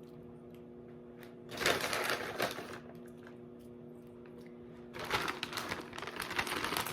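Crispy wonton strips being shaken out of their bag onto a salad: two bursts of rapid crackly rustling and rattling, about a second and a half in and again from about five seconds in.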